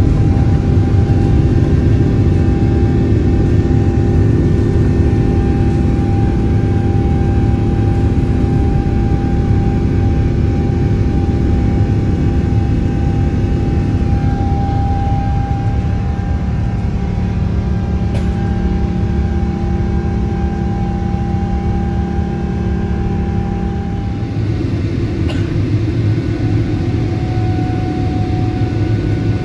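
Boeing 777-200LR's GE90 turbofan engines at takeoff power, heard from inside the cabin through the takeoff and climb-out: a loud steady rumble with a few steady whining tones that shift pitch several times. The sound eases slightly about 24 seconds in.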